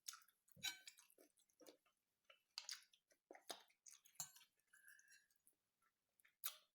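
Faint, scattered wet mouth clicks and smacks of a person chewing a mouthful of food.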